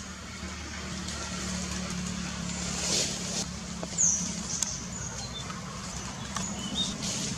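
Outdoor ambience: a steady low hum like a distant engine, with a few short, high chirps about four seconds in and again near the end.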